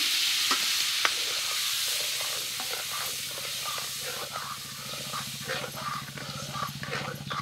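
Wet ground masala paste sizzling in hot oil in an aluminium kadhai as it is stirred with a steel ladle, with a couple of sharp clinks of the ladle on the pan early on and small spattering pops. The sizzle slowly dies down as the paste cools the oil and starts to fry.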